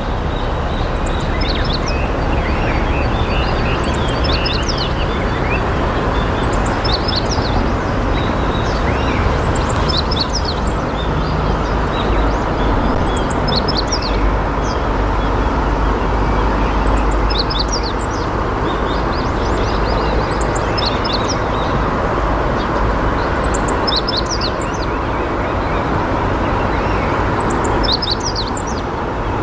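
Steady rushing of river water, with short, high chirps from small birds repeating every second or two over it.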